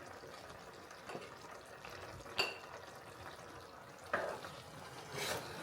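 A utensil stirring in a frying pan of simmering creamy sauce, with a sharp ringing clink on the pan about two seconds in and a few more knocks and scrapes near the end.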